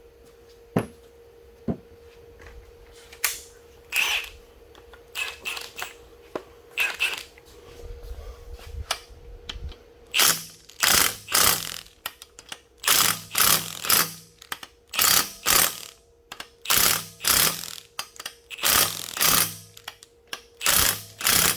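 Handheld power tool running down engine bolts in short bursts: a few at first, then many quick bursts, often in pairs, from about ten seconds in. A faint steady hum sits underneath.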